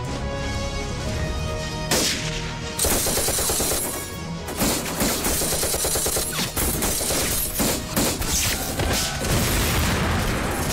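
Battle gunfire: dense, rapid volleys of many shots starting about two seconds in and continuing, over background film music, which is heard alone before the shooting begins.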